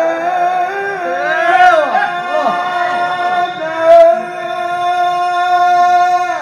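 A male qari chanting Quran recitation (tilawah) in a high register into a microphone. He holds long notes, with a quick run of melodic ornaments about two seconds in, and the held note cuts off sharply near the end.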